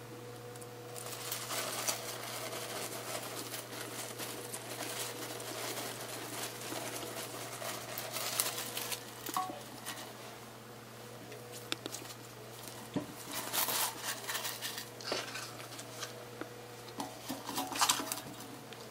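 Rustling and crinkling of a nonwoven spice bag full of bay leaves and dried chilies, handled in latex-gloved hands and set into a stainless steel pot. There are scattered light knocks and a busier flurry near the end as green onions and an onion go into the pot, over a faint steady low hum.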